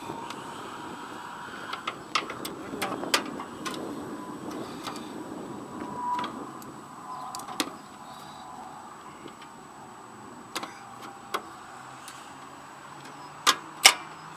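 Hand tools clicking and tapping on metal as a socket wrench and locking pliers work a bolt on a riding mower's seat bracket. The clicks come at irregular intervals, with a few louder ones near the end.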